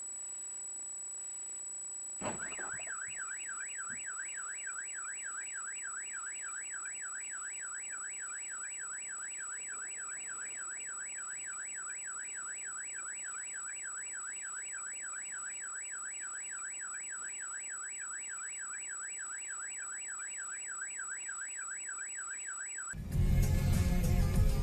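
A knock about two seconds in, then a car alarm siren warbling quickly up and down without a break. Near the end it cuts off abruptly as loud music comes in.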